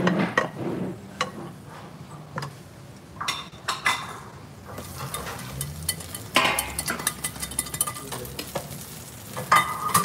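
Hot fat with fried cashews poured from a small pan over the yogurt topping of a fatteh, sizzling and crackling as it hits the cold yogurt. Before that, a few light clinks of the bowl and spoon, with the sizzle starting about halfway through.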